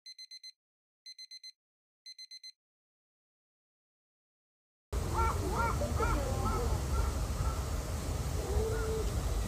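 Electronic beeping, three bursts of four quick beeps about a second apart, then silence. About five seconds in, outdoor sound cuts in: a low rumble with crows cawing several times.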